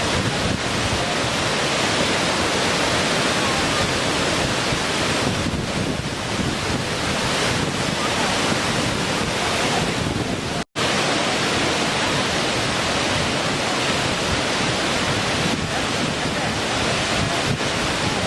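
Small waterfall: water falling and splashing in a steady rushing noise, which cuts out completely for an instant about ten seconds in.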